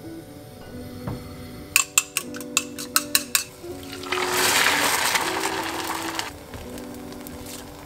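Metal chopsticks clicking against a ceramic bowl of beaten egg, about eight quick clicks, then the egg hitting a hot non-stick frying pan and sizzling loudly for about two seconds before the sizzle dies down.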